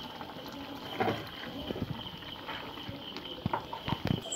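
Thick beef curry simmering in a clay pot, giving faint, scattered pops and soft clicks, a few more of them near the end, as thick coconut milk is poured in.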